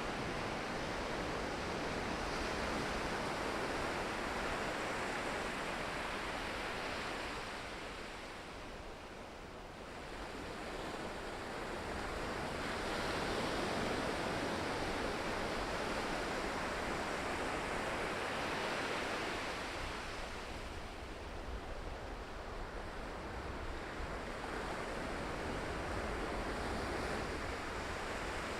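Ocean waves breaking and washing ashore, a continuous rushing surf that swells and eases in long surges, dipping briefly about a third of the way in and again about two-thirds of the way through.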